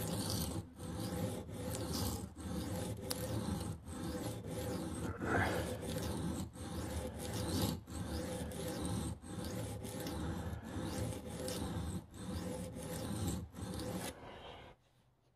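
Steel knife blade stroked back and forth across a water-soaked cheap sharpening stone in freehand sharpening, one scraping stroke about every three-quarters of a second. The strokes stop about a second before the end. The stone is biting and working the edge well.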